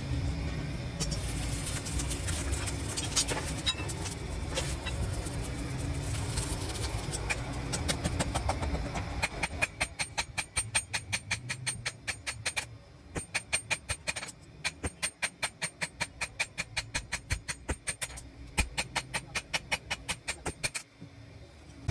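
Low steady rumble of a blazing forge fire. About halfway through, a fast, even run of hammer blows on a hot steel knife blade lying on an anvil begins, about four strikes a second, and it stops abruptly near the end.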